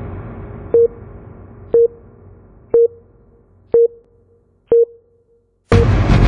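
Electronic intro jingle: a short mid-pitched beep repeating about once a second over a music tail that fades nearly to nothing. Loud electronic music cuts in suddenly near the end.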